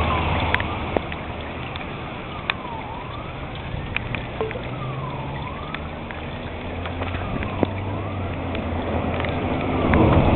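Outdoor tornado warning siren wailing at a distance, its pitch dipping and climbing again about every two and a half seconds. A steady low hum and scattered clicks lie under it.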